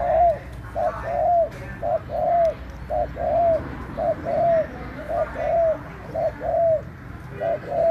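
A dove cooing over and over in an even rhythm: each phrase is a short note followed by a longer note that rises and falls, repeated about once a second.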